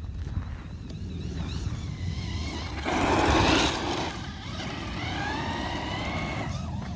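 Traxxas Rustler 4x4 VXL RC truck's brushless motor whining, its pitch rising and falling as the truck speeds up and slows on grass, with a louder rush of noise about three seconds in.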